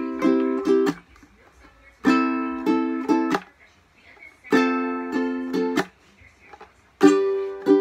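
Mahogany AnueNue ukulele strummed in short bursts of a few chord strokes each, coming about every two and a half seconds with brief pauses between.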